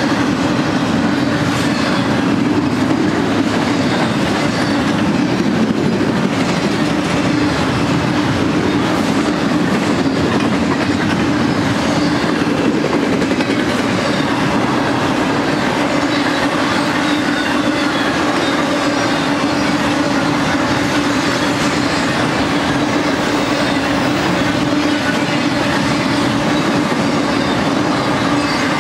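Double-stack intermodal freight cars rolling past at speed: a steady, loud rumble of steel wheels on rail with a steady hum and occasional clicks.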